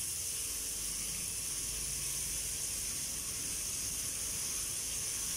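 Chicken and vegetable skewers sizzling in a hot ridged grill pan while barbecue sauce is brushed on: a steady, even hiss.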